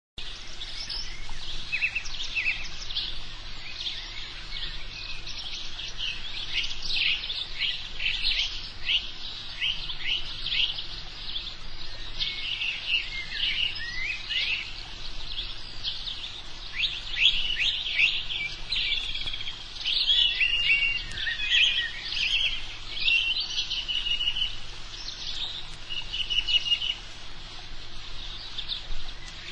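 A chorus of several songbirds chirping and singing at once, with many short overlapping chirps and quick trills all the way through.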